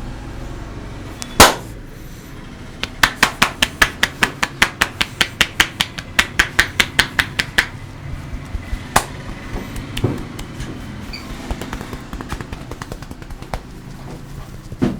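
Hands slapping and tapping on skin during a barber's head massage. One loud sharp slap comes about a second and a half in, then a fast even run of about five slaps a second for some five seconds, then a few scattered slaps.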